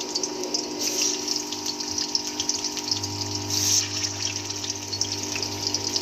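Marinated chicken leg pieces frying in hot oil in a cast-iron kadai: a steady dense sizzle and crackle of spitting oil. The sizzle surges about three and a half seconds in as another leg piece goes into the oil, and a low hum joins underneath about three seconds in.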